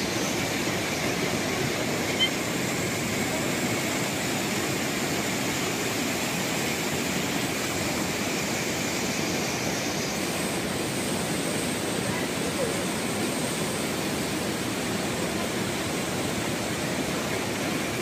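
Water pouring over the edge of a low weir: a steady, even rushing.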